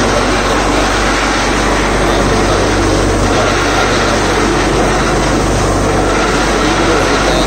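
Borewell drilling rig running steadily at full load, a loud even engine and compressor noise with a low hum, as compressed air blows muddy water up out of the borehole around the casing.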